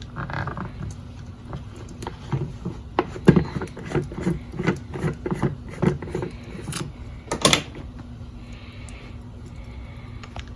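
Kitchen handling sounds: scattered clicks and knocks of containers and utensils as a spice jar is fetched and opened, with two sharper clicks about seven seconds in, over a steady low hum.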